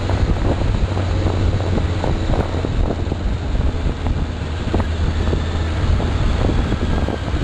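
Inline-four 600-class sport motorcycle riding at a steady speed: wind buffeting the on-board microphone over the engine's steady low drone.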